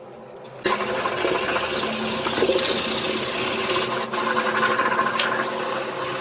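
Electric drill running steadily, starting up about two-thirds of a second in after a short quieter stretch.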